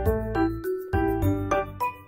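Background music: a light children's tune of keyboard notes over a bass line, the notes changing several times a second.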